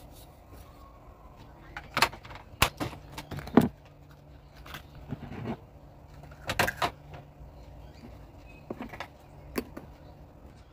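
Clear plastic refrigerator trays and fittings knocking and clattering as they are handled, taken out and set down, in a series of separate sharp knocks.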